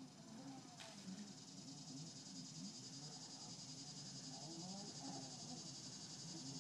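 Faint steady chorus of insects, with faint distant voices underneath and a single click about a second in.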